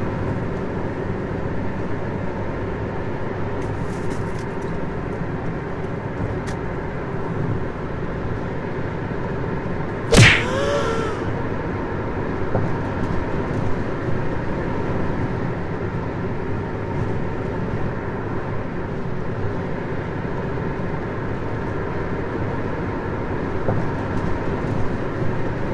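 Steady engine and road noise of a car driving along a city street, heard from inside the car. About ten seconds in, a sharp snap with a short chirping tone.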